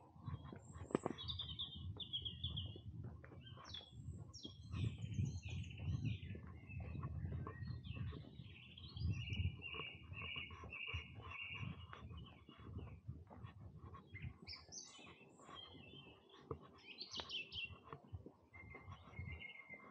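Several songbirds singing in overlapping phrases; midway one bird repeats a single note about twice a second for a few seconds. Under the song are the low, uneven thuds and scuffs of footsteps on a walking path.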